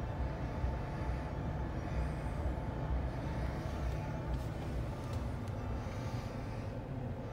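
2017 GMC Sierra 1500 pickup engine idling in Park, heard from inside the cab as a steady low rumble.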